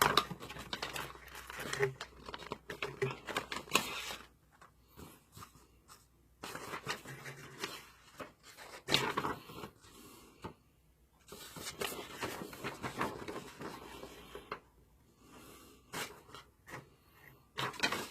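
Paper documents and packaging being handled: irregular rustling and crinkling, with scattered light knocks and scrapes.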